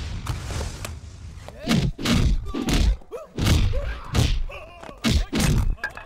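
Film fight sound effects: a swishing rush, then from about one and a half seconds in a fast run of about seven heavy punch and body-blow impacts, mixed with men's grunts.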